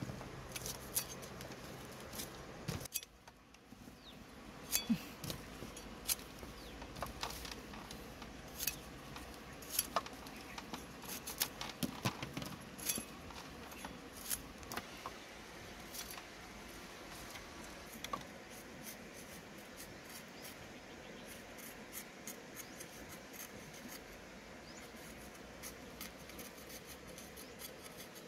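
A steel cleaver trimming and scraping fresh carrots by hand, making irregular sharp clicks and taps. The taps are dense at first and thin out in the second half.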